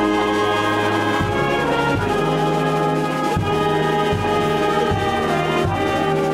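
Brass band playing a slow piece in held chords, the bass note moving about once a second.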